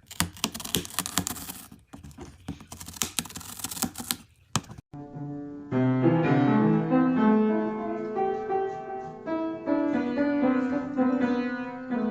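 A quick, irregular run of clicks and taps for about five seconds, cut off suddenly. Piano music with stepping notes follows.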